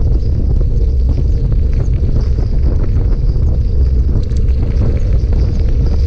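Steady low rumble of wind buffeting a bike-mounted camera's microphone while riding along a gravel track, with the tyres crackling faintly over the gravel.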